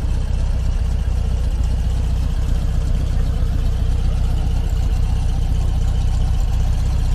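Volkswagen T2 bus's air-cooled flat-four engine idling steadily, its sound mostly low-pitched.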